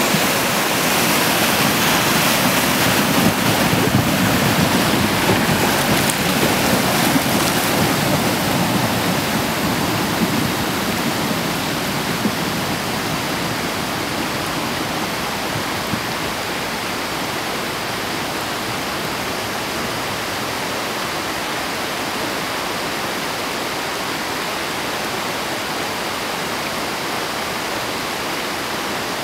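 Rushing floodwater, with an SUV's wheels splashing and churning through the current. The sound is louder for about the first ten seconds, then settles into a steady rush.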